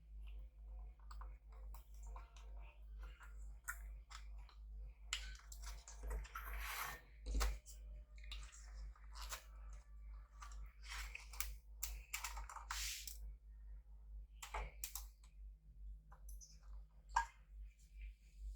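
Faint, irregular clicks and short scrapes of small plastic and metal laptop parts being handled and worked loose, over a low steady hum.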